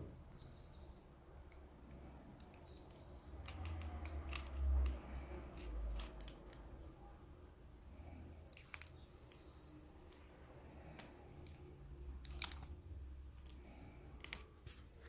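Faint clicks and taps of small parts being handled on an opened Samsung Galaxy Tab A tablet while a cable is freed, with a few low bumps. Three brief high-pitched tones sound through it.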